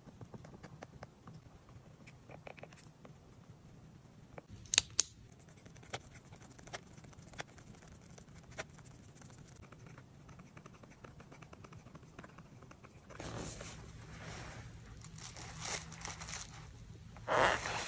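Marker pen tip scratching and ticking on journal paper in short strokes, with a louder sharp click about five seconds in. From about thirteen seconds on, the paper rustles as the journal is handled, growing louder near the end.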